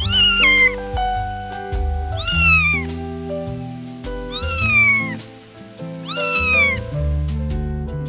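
A cat meowing four times, high calls about two seconds apart that each fall in pitch, over background music with sustained notes and bass.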